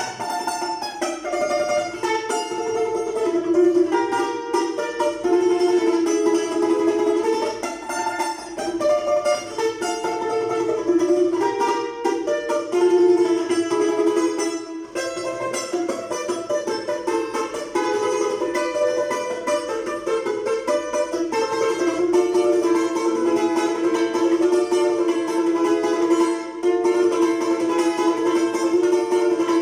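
Russian balalaika playing a continuous plucked melody, with held notes and frequent changes of pitch, in an Italian- and Spanish-flavoured tune.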